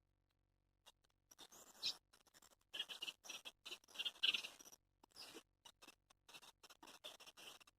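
Wild songbirds chirping and singing in short, broken bursts, starting about a second in.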